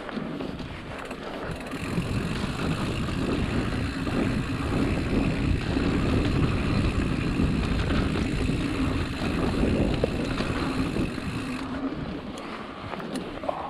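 Mountain bike ridden along a dirt trail: rolling tyre noise and rattle with wind rushing over the microphone. It gets louder in the middle and eases off near the end.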